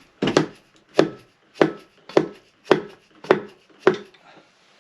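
Hammer tapping on a 1974 Yamaha DT250A two-stroke engine's casing: about seven sharp knocks a little over half a second apart, stopping near the end. The blows are knocking a stuck cover loose from its gasket.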